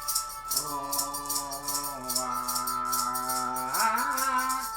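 A voice holds a long wordless sung note that slides up near the end, over a hand rattle or shaker shaken in a steady rhythm.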